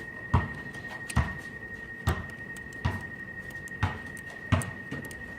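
Six sharp metallic clicks about a second apart, from a hand socket wrench working the small 10 mm bolts on the water pump, over a faint steady high-pitched tone.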